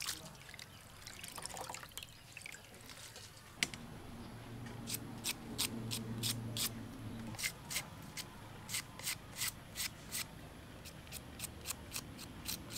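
Hands squeezing and stirring wet glass noodles in a steel pot of soaking water, then a knife slicing an onion, a run of crisp quick cuts at about two to three a second.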